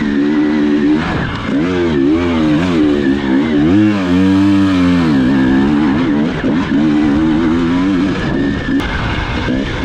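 Enduro motorcycle engine revving up and down as it is ridden, its pitch rising and falling again and again with the throttle.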